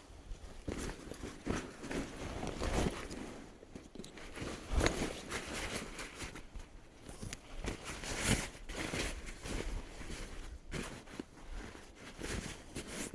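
Footsteps crunching, with uneven, irregular steps.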